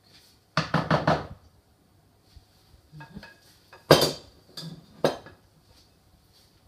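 A spatula knocked quickly several times against glass kitchenware, knocking off the last of the chocolate brownie batter. About four seconds in, a glass mixing bowl is set down on the counter with a loud clunk, and two lighter knocks follow.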